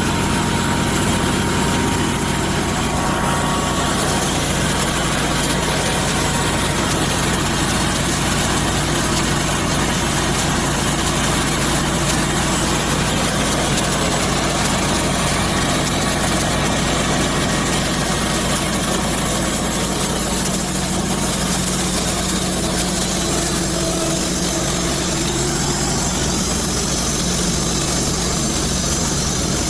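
Sawmill engine running steadily while the saw cuts lengthwise through a mesquite log.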